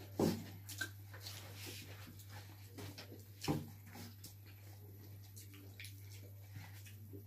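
Close-up eating sounds: wet chewing, lip-smacking and fingers working through chicken and rice, as a string of small clicks and squishes. Two louder knocks against the table, one right at the start and one about halfway, over a steady low electrical hum.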